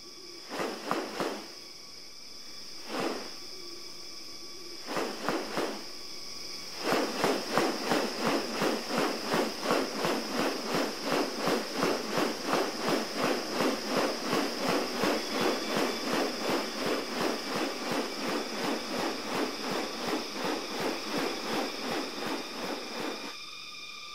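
Rainforest sound with a steady high-pitched insect drone. Over it come a few scattered rasping strokes, then from about seven seconds a long, fast, even series of rasping pulses, about two to three a second.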